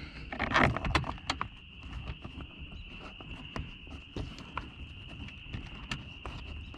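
Scattered clicks and light knocks of small parts and screws being handled during car door reassembly. The clicks are densest and loudest in the first second. A steady high-pitched tone runs in the background throughout.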